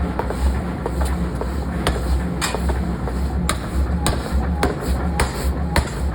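Forging hammer blows on metal, sharp strikes coming irregularly about one to two a second over a steady low machine hum.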